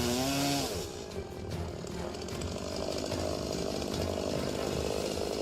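Chainsaw running steadily, starting about a second in.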